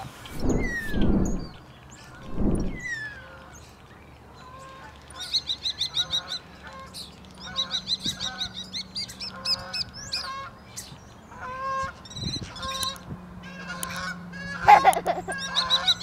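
Common starling singing a varied medley of rapid repeated high notes, whistles, clicks and rattles, with a loud harsh squawk near the end. Two short low whooshing noises come in the first three seconds.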